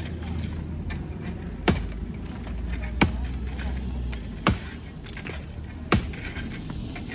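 Hammer blows on a brick wall during demolition: four sharp strikes at an even pace, about a second and a half apart. A steady low rumble runs underneath.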